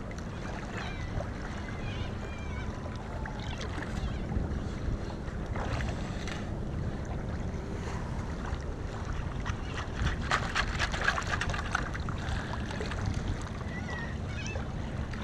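Shallow water sloshing as someone wades, over a steady low rumble. About ten seconds in, a perforated stainless-steel sand scoop digs into the wet sand, a burst of gritty rattling and splashing lasting a couple of seconds.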